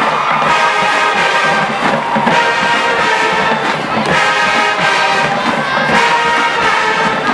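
College marching band playing, its brass section carrying loud held chords with short breaks about every two seconds over drums.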